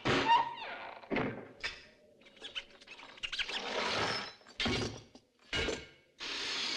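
A quick run of separate metallic clanks, thuds and scrapes from metal gear being handled, then a harsh steady rasping noise that starts near the end.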